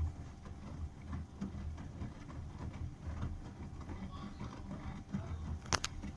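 Bosch washing machine on a 60 °C coloured-wash programme, its drum turning and tumbling the laundry with an uneven low rumble and soft knocks. Two sharp clicks come close together near the end.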